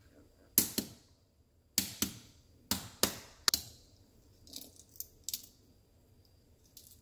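Soft-boiled eggs, chilled in ice water, tapped against a hard surface to crack their shells: about seven sharp cracking taps, some in quick pairs, over the first three and a half seconds. A few softer crackles follow as the shell is broken up and peeled away.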